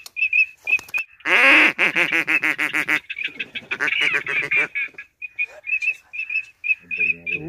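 Ducks quacking: short, high calls repeat several times a second throughout, and about a second in a loud run of rapid quacks lasts a couple of seconds.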